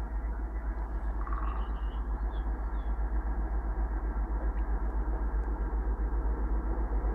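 Twin-section diesel freight locomotive approaching with its train, its engine running with a steady, regular low throb. Faint bird chirps come through early on.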